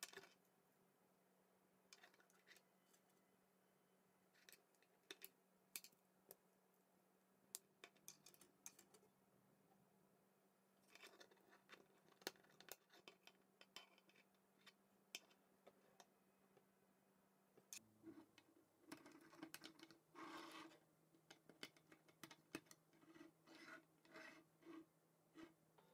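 Faint, scattered clicks and rubbing of plastic K'NEX rods and connectors being snapped together and handled, busier in the last third.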